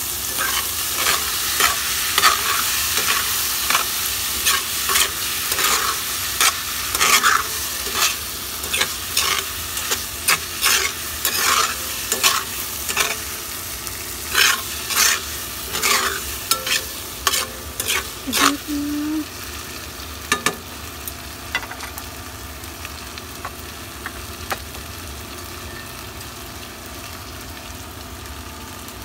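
Minced meat and tofu sizzling in a frying pan while a spatula stirs them, knocking and scraping against the pan in quick strokes. After about twenty seconds the stirring stops and only a quieter, steady sizzle remains.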